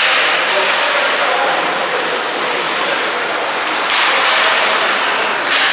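Ice hockey rink noise: a steady wash of arena and crowd noise, with skate blades scraping across the ice and brief louder hissing scrapes about four seconds in and near the end.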